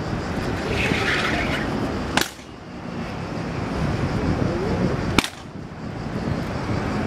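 Steady road-traffic noise from a busy city street, broken twice by a single sharp knock, about three seconds apart. After each knock the background briefly drops in level.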